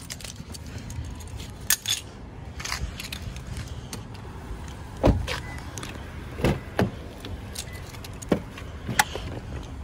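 Keys jangling in hand while a Toyota Camry's doors are handled: scattered clicks and knocks, the loudest a dull thump about five seconds in.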